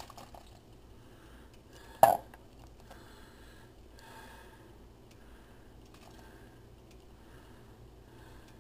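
A single short, loud burp about two seconds in, over faint room noise.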